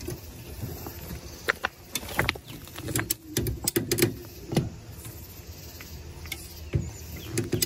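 Scattered metallic clicks, knocks and creaks as a crushed 1957 Chevy Bel Air rear quarter panel is pulled outward with a pulling rig hooked to pins welded on the sheet metal; the panel is slowly giving and moving out.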